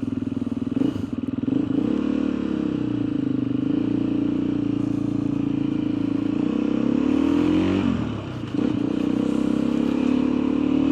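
Motorcycle engine running under way, its pitch rising and falling with the throttle, with a brief drop, a gear change, about eight seconds in before it pulls again.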